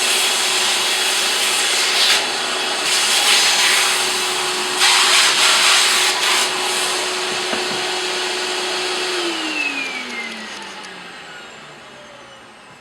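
Toner vacuum running, its nozzle sucking spilled toner from a copier developer unit's housing, with the hiss rising in a few louder surges. About nine seconds in the motor is switched off and winds down, its pitch falling as the sound fades.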